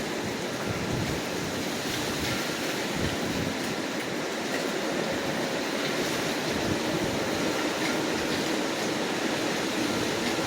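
Hurricane wind blowing steadily, a constant rushing noise without distinct gusts or breaks.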